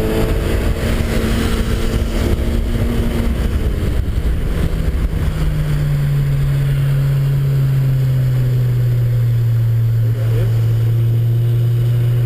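Car engine heard from inside the cabin while lapping a race track, with road and wind rumble underneath. From about five seconds in the engine note sinks slowly as the revs come down, then starts rising again right at the end.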